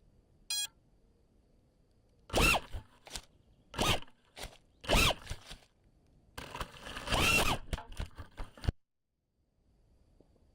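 A short beep, then an FPV quadcopter's four brushless motors (iFlight Xing 2206 2750kv with 5-inch props) revving in bursts as throttle is punched, their whine rising and falling in pitch. The sound cuts off suddenly near the end.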